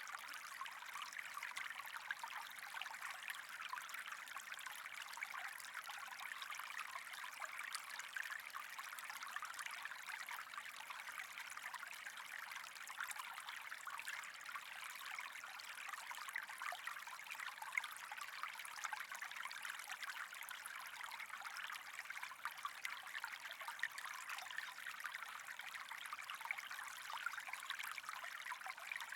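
Steady trickling water, running on evenly with many small crackles.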